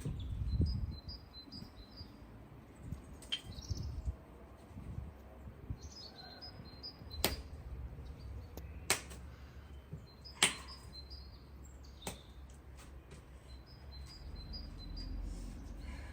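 Small birds chirping repeatedly in short high notes, with several sharp knocks standing out over them: one a few seconds in, then four evenly spaced about a second and a half apart.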